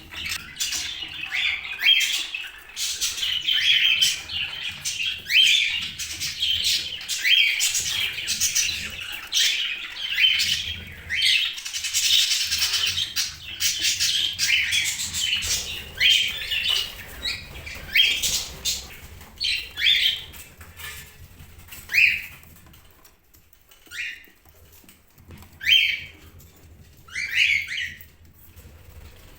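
Pet budgerigars chirping and chattering in quick, overlapping calls, then thinning out to single chirps every second or two near the end.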